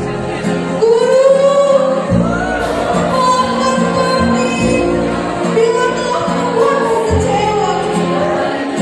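Girls' school choir singing a song, their voices amplified through handheld microphones.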